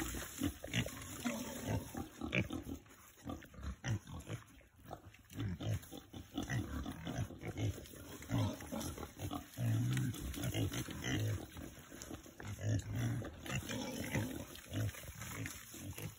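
A group of pigs grunting, short low grunts coming one after another, overlapping at times.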